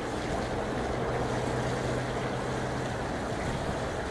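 Steady distant rumble of a Boeing 747 freighter's four jet engines as it taxis, mixed with wind buffeting the microphone.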